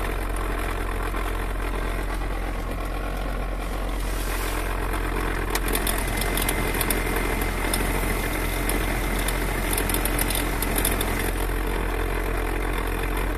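Lada 4x4 Urban's heater blower motor running with the engine idling: a steady rush of air through the dash vents, with faint ticking and a thin steady whistle that comes in about six seconds in. The failing blower motor is catching on something inside, the kind of fault that got it replaced under warranty for whistling.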